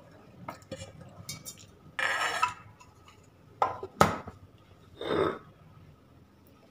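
Stainless steel kitchenware clanking and scraping: rice paste is scraped from a steel bowl into a mixer-grinder jar, with a few short scrapes and a sharp metal clank about four seconds in as the lid goes onto the jar.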